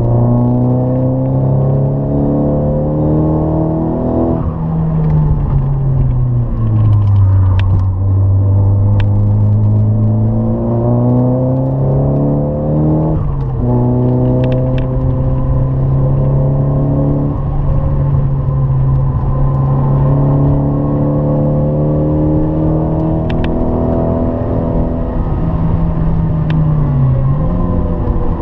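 Nissan 200SX's turbocharged four-cylinder engine heard from inside the cabin, rising in pitch under hard acceleration. The pitch drops sharply at gear changes about four and thirteen seconds in, and dips briefly near the end.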